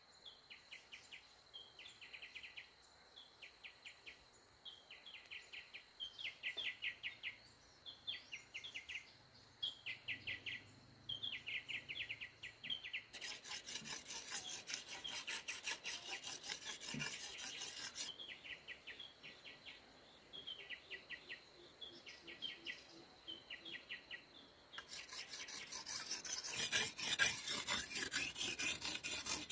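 Machete blade being sharpened on a rock: quick rasping strokes of steel on stone, first a run of about five seconds midway, then a louder run near the end. Before and between the runs, groups of rapid high chirps repeat about once a second over a steady high whine.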